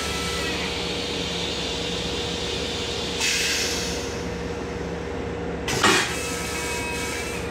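M7 railcar toilet flushing: a hiss starts about three seconds in, then a short loud rush about six seconds in as the blue fluid drains from the stainless-steel bowl. The steady hum and low rumble of the moving train run underneath.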